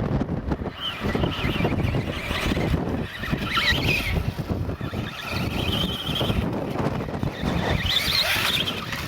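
Wind buffeting the microphone, with the high whine of an RC motorbike's Venom 4800KV brushless electric motor rising and falling in pitch several times as the bike speeds up and slows.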